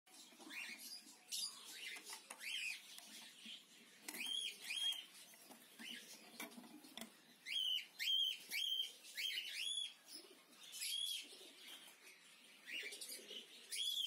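Cockatiels calling: short chirps that rise and fall, often in quick pairs and runs of three or four.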